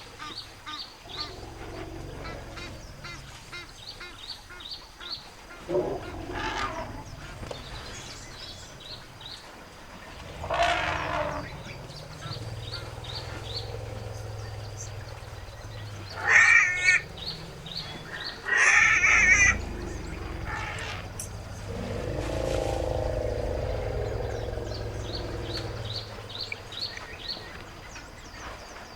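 Elephants calling: a newborn elephant calf screaming, with two loud shrill screams close together about halfway through, and low elephant rumbles underneath. A longer, lower call follows near the end, and a faint repeating high chirp runs in the background.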